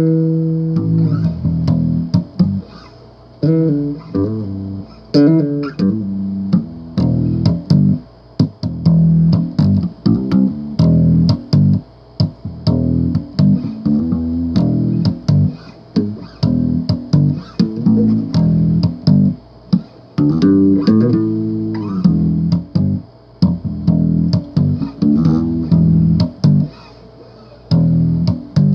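Solo electric bass guitar riffing: plucked notes and short phrases with brief pauses between them.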